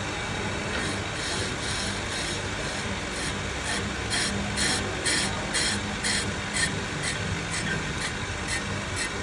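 Brake disc lathe turning a car's brake rotor, its motor humming steadily while the cutting bit rasps against the disc about three times a second. The cutter bites only on part of each turn because the disc has heavy runout (warped).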